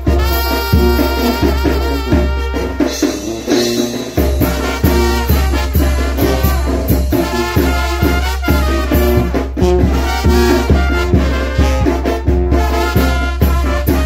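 A group of trumpets playing a chilena together, a lively tune over a steady low bass beat.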